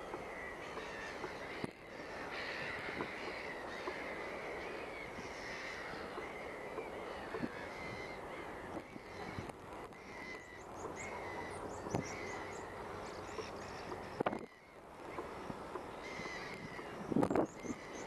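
Gulls calling repeatedly over a steady outdoor background of noise, with a brief loud rumble near the end.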